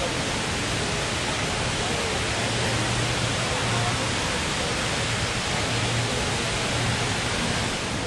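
The Rain Vortex, an indoor waterfall over 40 m tall, pouring from the dome into its pool: a steady, even rush of falling water.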